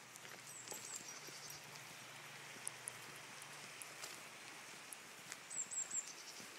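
Faint footsteps of a walker and dogs on a dirt woodland track over a quiet outdoor hiss. A short burst of high chirping comes twice, just after the start and again near the end.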